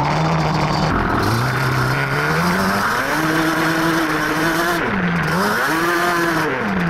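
Yamaha Banshee ATV's two-stroke twin engine revving up under way while riding, holding high revs, dipping briefly, then climbing again before dropping back near the end.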